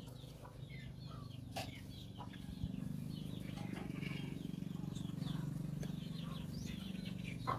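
Birds chirping and chickens clucking in the background, over a low steady hum that gets a little louder about three seconds in.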